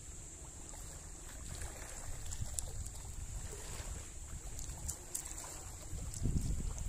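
Wind buffeting the microphone by the open sea, a low rumble that gusts louder near the end, over a steady faint high hiss.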